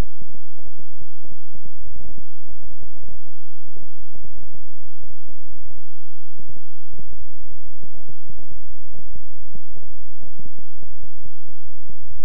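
Electronically generated low 'healing frequency' sound: several steady low hums held together, with irregular throbbing pulses over them.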